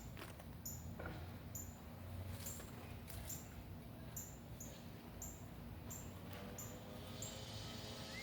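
A short, high-pitched chirp call repeating about once a second, faint, over a low outdoor rumble with a few soft knocks.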